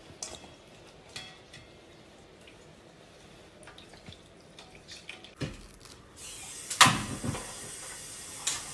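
Grated coconut squeezed by hand in a metal sieve, coconut milk dripping and trickling into a steel bowl, with light clicks of metal on metal. A little past halfway a steady hiss comes in and a single sharp knock is the loudest sound.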